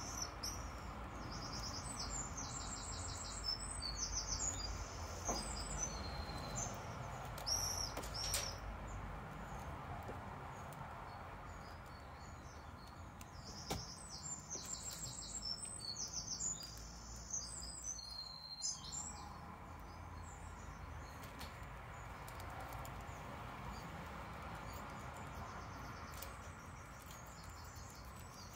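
A songbird singing in bouts of rapid trilled notes, two long bouts about ten seconds apart, over a low steady background hiss. Now and then come small sharp clicks of plastic building bricks being handled and pressed together.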